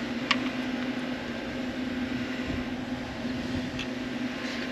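Refrigeration condensing unit running, a steady hum from its compressor and condenser fan. A light click about a third of a second in.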